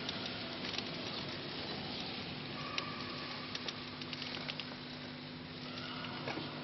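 Audience waiting in a large hall: a steady hiss of shuffling with scattered small clicks and taps, over a low steady hum. A brief higher tone sounds about three seconds in.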